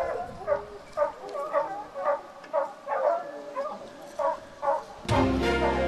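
Dogs barking, about two barks a second. About five seconds in the barking gives way to theme music that starts abruptly.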